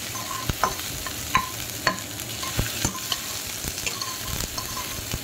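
Freshly added sliced onions frying in hot oil in a kadai, sizzling steadily, while a metal spatula stirs them and scrapes the pan with irregular sharp clicks.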